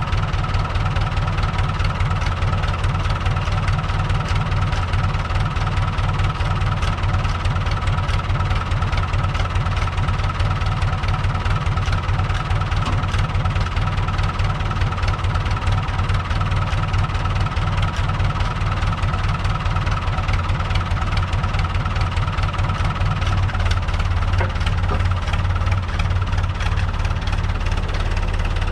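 Diesel tractor engine running steadily, with a deep, even hum that shifts slightly near the end.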